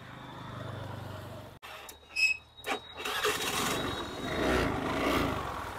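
A Honda Grazia scooter's single-cylinder engine being started: a short high beep and a click about two seconds in, then the engine catches and runs.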